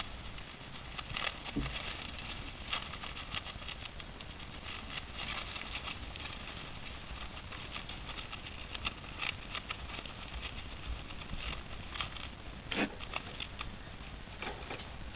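Hamster rustling and scratching through shredded toilet paper and wood-shaving bedding: a continuous, irregular crackle with a few sharper ticks.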